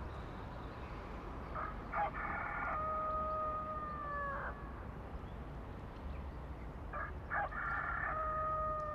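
A rooster crowing twice: each crow is a long cock-a-doodle-doo with a choppy start and a drawn-out held last note that drops at the end. The second crow runs on past the end. A low steady hum sits underneath.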